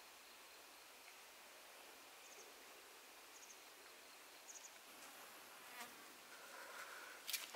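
Quiet outdoor hiss with faint, short high insect chirps about once a second. In the last few seconds come footsteps rustling through leafy brush, with a sharp snap near the end.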